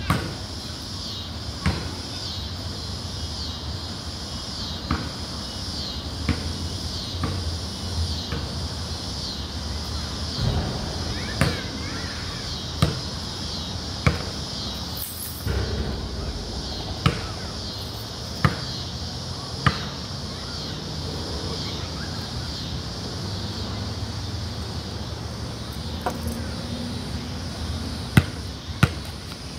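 Basketball bouncing on a concrete court: single sharp bounces about every one to one and a half seconds, a stretch without bounces, then a few quicker bounces near the end.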